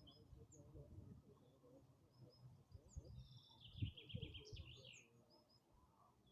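Faint outdoor quiet in which a songbird sings one short trilled phrase, falling slightly in pitch, about halfway through, with a few scattered faint chirps from other birds. A low rumble runs underneath.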